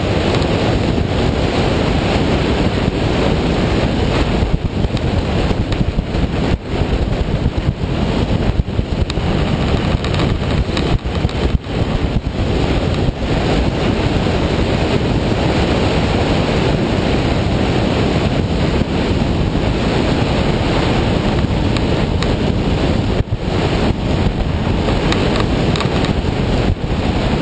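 Steady wind rush on the microphone of a camera riding on a moving motorcycle, a loud even roar with the road and bike noise blended underneath.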